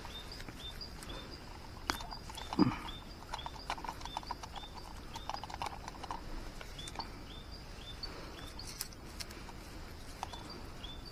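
Rustling and handling noises of hands working in grass and leaves, with a few sharp clicks. Under it a short high chirp repeats about twice a second. About two and a half seconds in there is a short low falling sound, the loudest moment.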